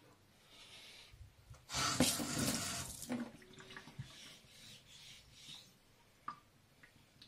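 Water splashed onto a whetstone, a short rush about two seconds in, then a softer wet swishing as a hand spreads the water over the stone's surface. A light click near the end as the knife blade is set on the stone.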